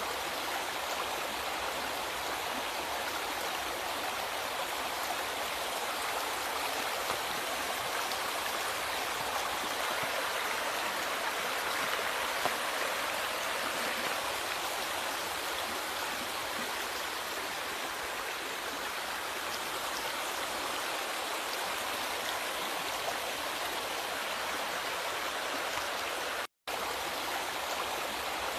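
Steady rush of flowing river water, cutting out to silence for a split second near the end.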